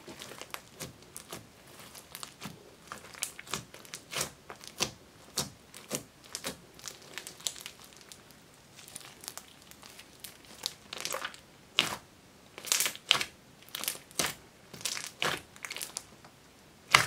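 Hands squeezing, stretching and pressing a fluffy slime mixed with small foam beads: a run of irregular sticky pops and crackles, in louder clusters in the second half and a sharp pop at the very end.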